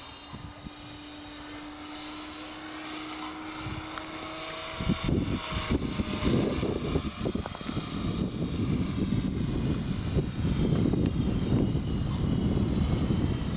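Electric RC helicopter with a four-blade rotor head flying, its rotor and motor giving a steady high whine. About five seconds in, a loud, irregular low rumbling sets in and stays, growing louder.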